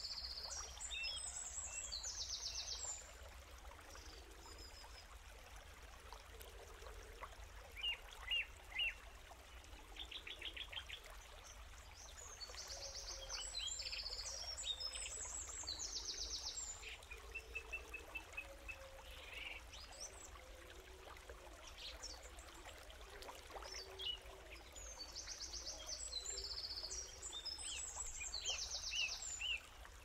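Woodland birdsong over faint trickling stream water. One bird sings the same high, quick song phrase three times, about every thirteen seconds, with shorter chirps and a brief trill from other birds in between.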